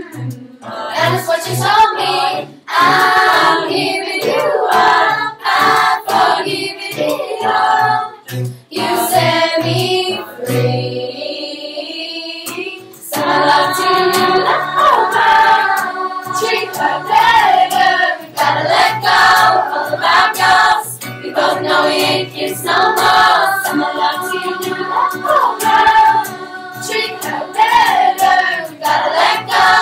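Youth choir, mostly girls' voices, singing a pop song in harmony over a steady, pulsing low bass line. The voices thin out briefly about eleven seconds in and come back fuller about two seconds later.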